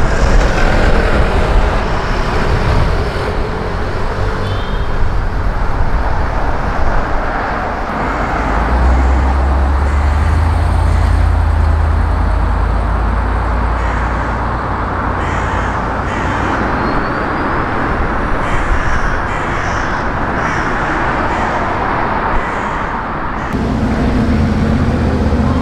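City street traffic: cars driving past with engine and tyre noise. A low engine rumble swells for a few seconds around the middle as a car passes close by.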